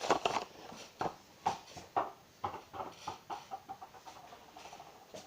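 A small toy ball bouncing repeatedly on a hard floor, sharp knocks about twice a second that grow fainter toward the end.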